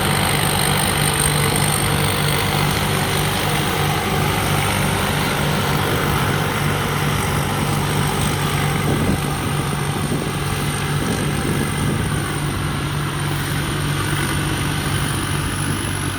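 Somboon Pattana rice combine harvester with a 260 hp engine running steadily under load while harvesting, a deep engine hum under the clatter of the machine. A thin high-pitched whine runs over it and rises slightly near the end.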